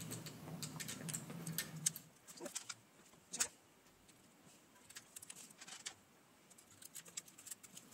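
Faint clicks and ticks of small electronic components being handled, their wire leads pushed through a circuit board and parts pulled off their tape, with one sharper click about three and a half seconds in. A faint low hum runs under the first two seconds.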